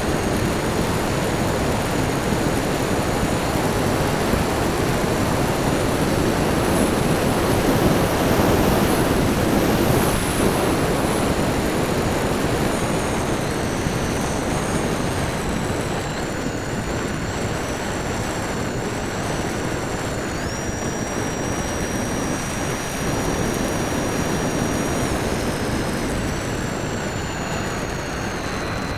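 Radio-controlled model Transall C-160 in flight, heard from a camera on its wing: a steady rush of airflow and propeller noise with a thin high motor whine that jumps in pitch several times as the throttle changes.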